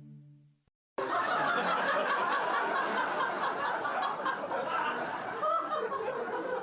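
A group of people laughing together, starting suddenly about a second in, just after a held musical tone fades out.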